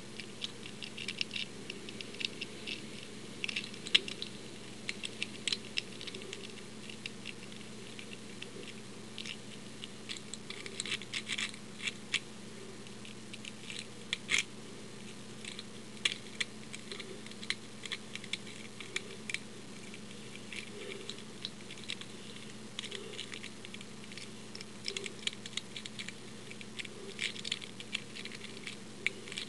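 A W lock pick working the pins of an old Yale pin tumbler lock: irregular small metallic clicks and scratches, several a second, with a few sharper clicks now and then.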